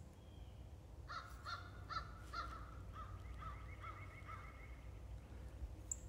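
Crows cawing: a quick run of four or five caws starting about a second in, then a fainter series of repeated calls that stops near five seconds.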